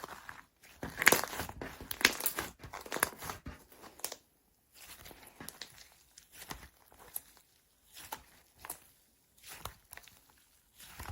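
Slime being squished and worked by hand, in irregular bursts of sticky, crackly squishing, densest and loudest in the first three seconds, then softer and sparser.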